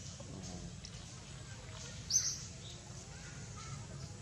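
A bird gives one short, high chirp about two seconds in, part of a call repeated about every two and a half seconds, over a steady outdoor background hum.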